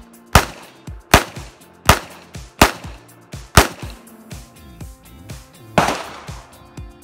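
Handgun fired five times in steady succession, a shot a little under every second, followed near the end by one duller, longer bang.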